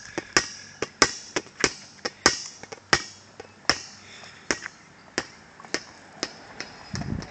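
A toddler's footsteps on a concrete driveway: small shoes tapping with sharp clicks at an uneven pace, about one or two a second. A brief low rumble comes near the end.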